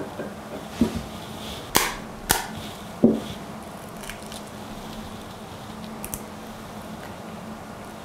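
Eggs cracked against the rim of a bowl to separate the yolks: four sharp cracks in the first three seconds or so, then a fainter tap about six seconds in.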